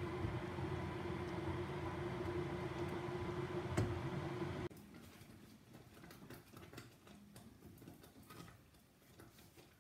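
A silicone spatula stirs strawberry jam in a stainless steel saucepan over a steady kitchen hum and hiss, with one sharp knock about four seconds in. Just before five seconds the hum cuts off suddenly, leaving only faint scattered clicks and taps.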